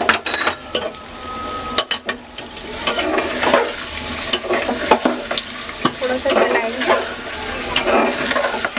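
A metal spatula stirs and scrapes through frying meat masala in a steel pot, with clicks and knocks against the pot and the oil sizzling as yogurt is mixed in.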